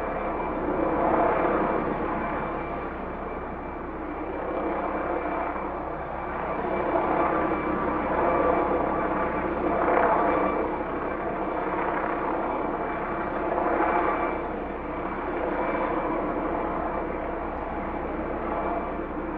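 Helicopter hovering: a steady rotor sound with a fast, even chop from the blades, swelling and easing in loudness every few seconds.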